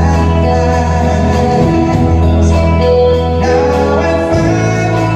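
Live band playing a song: a singer over electric guitar and bass, the bass changing notes every couple of seconds.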